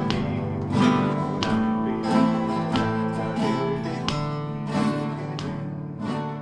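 Acoustic guitar music, notes and chords picked at an even pace of about one stroke every three-quarters of a second, slowly getting quieter toward the end.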